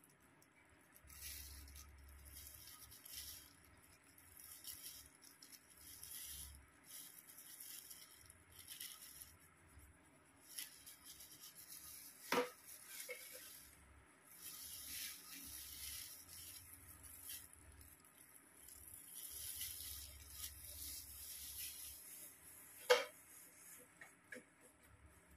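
Faint, irregular rustling and brushing as a hair-dye tint brush and plastic-gloved hands work through hair, with two sharp clicks, one about halfway through and one near the end.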